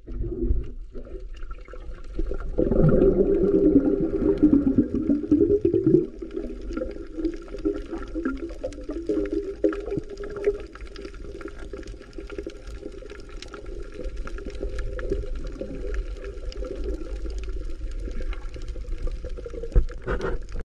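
Underwater sound picked up by a submerged camera: a muffled, steady wash of water with scattered faint clicks, loudest from about two and a half to six seconds in.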